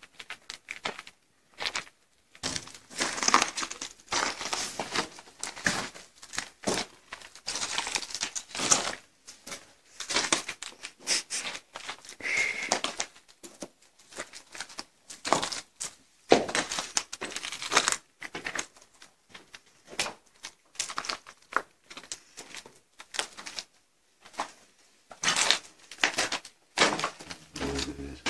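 Footsteps crunching and scraping over rubble and debris inside a small ruined room, in irregular bursts.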